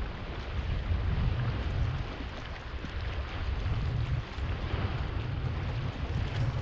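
Wind buffeting the microphone in an uneven low rumble, over the steady wash of sea surf against a rocky shore.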